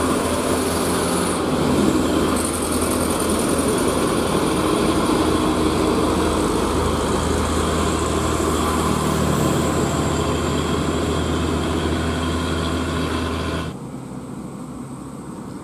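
Diesel engine of a loaded UD Quester truck running steadily under heavy load as it crawls up a steep climb. Near the end the sound drops suddenly to a quieter, more distant engine.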